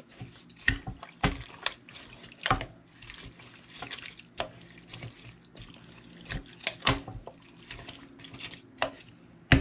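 A wooden spoon stirring a wet mixture of rice, broth, cream soup, chicken, broccoli and cheese in a slow cooker's ceramic crock: irregular wet squelches with short knocks and scrapes of the spoon against the crock.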